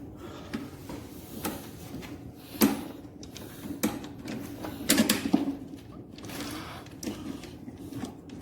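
Scattered clicks and knocks of parts being handled and fitted together while a lawn mower is assembled by hand.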